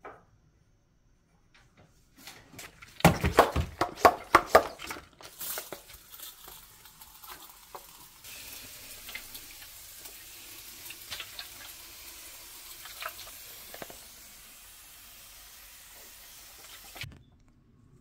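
Hand spray bottle spraying cleaner inside a refrigerator compartment: a quick run of trigger sprays about three seconds in, then a long even hiss of spray mist with a few light clicks.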